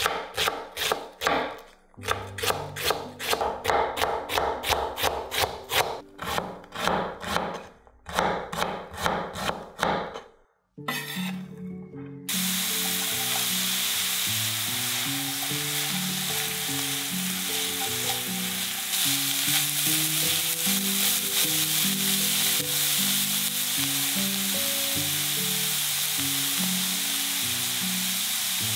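A chef's knife chopping cabbage on a wooden cutting board in quick strokes, about four a second, in short runs for the first ten seconds. From about twelve seconds in, shredded cabbage and carrot sizzle steadily in oil in a wok, with background music underneath.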